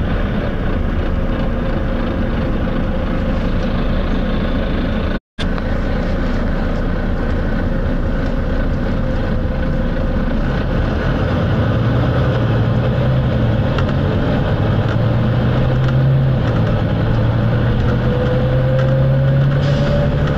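Volvo B9TL double-decker bus under way, heard from inside: its 9-litre six-cylinder diesel engine running hard under load with drivetrain and road noise. From about halfway the engine drone strengthens, and a whine rises near the end. The sound cuts out for a moment about five seconds in.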